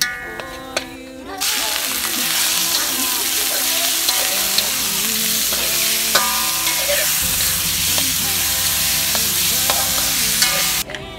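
Beef and water hyacinth stir-frying in a hot pan, sizzling steadily with the scrape and clicks of a spatula stirring. The sizzle starts suddenly about a second and a half in and cuts off just before the end.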